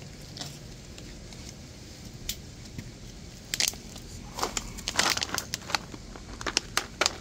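Irregular sharp clicks and crackles, scattered through the second half, over a low steady background.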